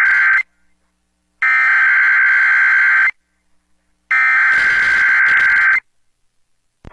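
Emergency Alert System SAME header: bursts of digital data tones broadcast over FM radio. The tail of one burst is followed by two more, each about a second and a half long, with a second of silence between them. The header encodes a Texas Child Abduction Emergency (Amber Alert).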